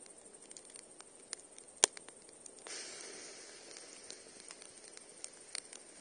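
Wood campfire crackling, with scattered small pops and one loud sharp pop about two seconds in, followed by a brief hiss that starts suddenly and fades.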